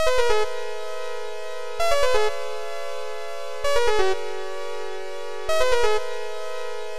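Background electronic music: sustained synthesizer chords with a short run of notes repeating about every two seconds.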